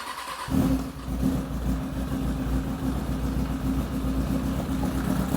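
2003 Kawasaki ZX-6R 636's inline-four engine starting about half a second in, then idling steadily on fresh oil, just after an oil change.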